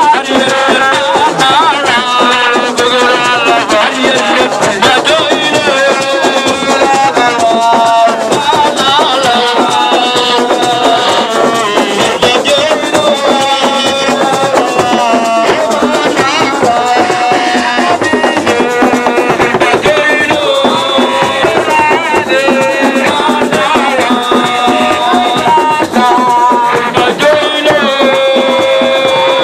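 Loud music: voices singing over shaken rattles and percussion, running without a pause.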